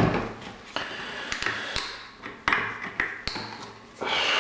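Hard objects knocking and tapping while being handled: about seven sharp knocks spread unevenly over four seconds. A steady hiss begins near the end.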